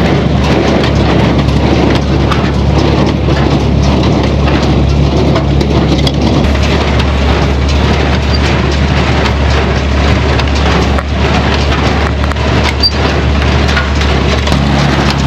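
Farm tractor engine running steadily under load with a constant rattling clatter of hay machinery; the engine's note shifts slightly about halfway through and again near the end.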